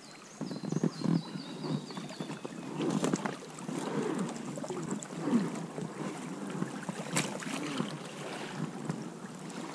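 A small boat going over a log on a river: water sloshing around the hull, with a couple of sharp knocks about three and seven seconds in. A songbird trills a string of quick descending notes in the first two seconds.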